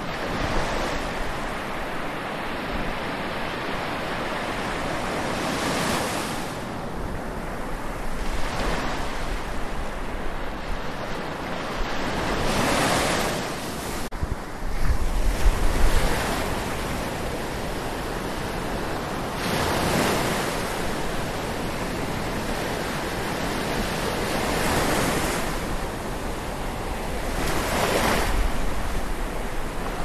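Atlantic Ocean waves washing onto the shore, a swell of surf rising and falling every few seconds. Wind buffets the microphone as a low rumble, most strongly about halfway through.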